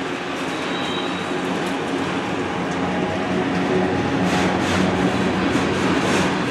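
Freight train cars rolling past close by: a steady rumble of steel wheels on rail that grows louder, with a run of sharp clicks from the wheels over the last couple of seconds.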